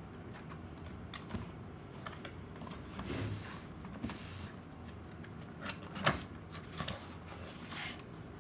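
Handling noise from a toy doctor set and its packaging: scattered light clicks and rustles, with one sharper click about six seconds in.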